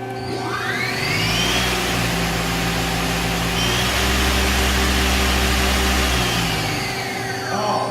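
Mazak QT250 CNC lathe spindle spinning up with a rising whine, running at steady speed with a low hum, then winding down with a falling whine over the last couple of seconds.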